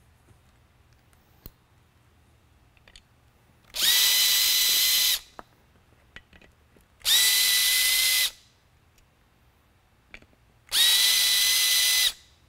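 Makita drill/driver running in three short bursts of about a second each, spinning up quickly to a steady whine, as it backs screws out of the cast-metal lamp housing. Light clicks of handling come between the bursts.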